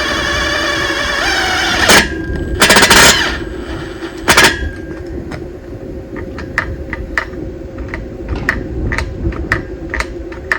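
Cordless drill motor whining as it drives a screw, stopping about two seconds in, followed by three loud knocks and then a series of light irregular clicks.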